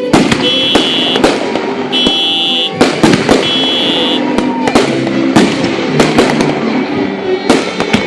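Fireworks display going off in rapid, irregular bangs and crackles. A high electronic beep repeats about once a second through the first half.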